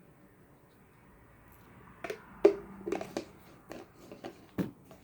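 Foaming hand-soap pump being pressed over and over, a string of short clicks and squelches in the second half, the loudest about halfway through.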